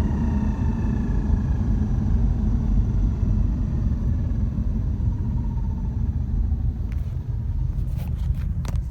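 2006 Subaru Impreza WRX running with a steady low rumble and a faint whine that falls slowly in pitch over the first few seconds: the grinding metal noise from the gearbox area that a replacement gearbox did not cure. A few sharp clicks come near the end.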